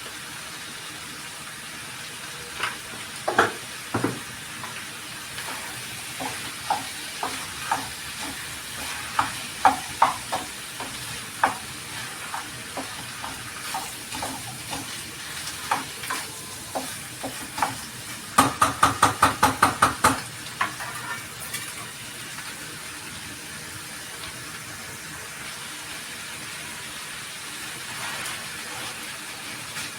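Pav bhaji vegetables sizzling in a pan under a steady hiss, with a utensil stirring and knocking against the pan every second or so. Past the middle comes a quick run of about ten knocks, some five a second.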